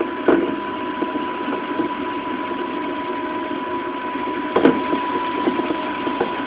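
Running sound inside a JR 211-series electric multiple unit motor car at speed: a steady rumble from the wheels and bogies with scattered clicks over the rails and a steady high tone. There is a sharper, louder clack about four and a half seconds in.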